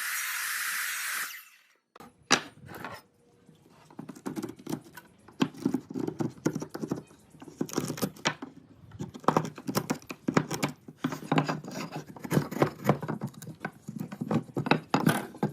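A steady hiss that cuts off about a second in, then a run of rapid, irregular knocks and taps of hand tool work on wood.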